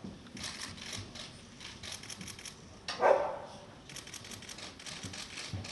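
A dog gives one short bark about three seconds in, falling in pitch. Around it, camera shutters click in quick runs.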